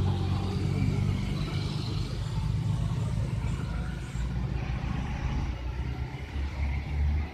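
Passing road traffic: a van and a motorcycle go by with a steady engine hum, then a concrete mixer truck's diesel engine rumbles, growing louder toward the end as it comes round the bend.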